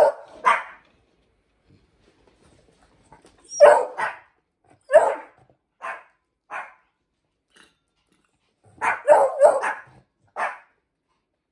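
Beagle barking in short single barks, about a dozen in three bunches: two at the start, a run of five from about three and a half seconds in, and another quick run near the end.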